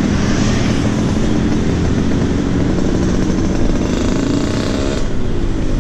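Road traffic: small motorbike engines passing close by over a steady road-noise hiss.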